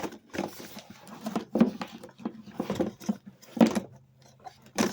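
Handling noise as a camera is positioned and strapped in place with ratchet straps: an irregular run of knocks, rubs and rattles, the loudest about three and a half seconds in.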